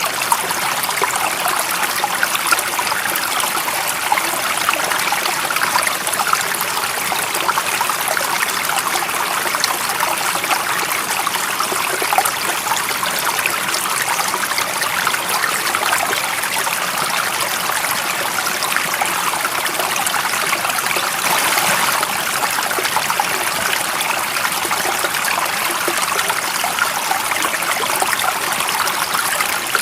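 Water running in a small stream, a steady trickling and splashing with the sound sitting high and thin, little low rumble, unchanging throughout.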